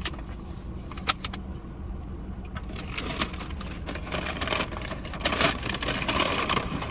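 A few sharp clicks about a second in, then the irregular crinkling rustle of a small bag of chips being handled, over a steady low rumble.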